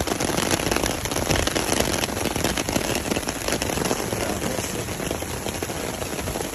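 Heavy rain falling on the ground, a dense, steady patter with many small crackling drops.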